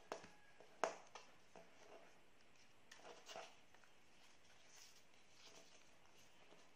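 Near silence with the faint rustle and a few short crackles of origami paper being folded and creased by hand. The sharpest crackle comes about a second in, and a small cluster follows around three seconds in.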